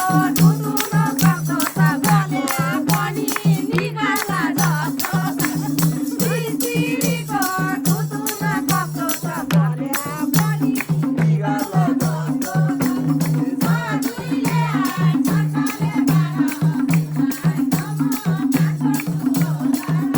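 Live Nepali dohori folk music between sung verses: a melody line bending in pitch over a steady, rhythmic percussion accompaniment with a pulsing low part.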